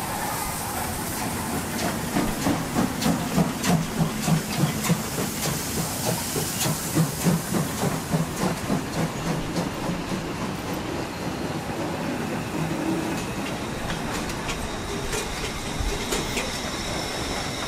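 A line of German class 52 and class 50 steam locomotives rolling slowly past: rhythmic exhaust chuffs about three a second, strongest in the first half, over a steady hiss of steam, with wheels clicking over the rail joints.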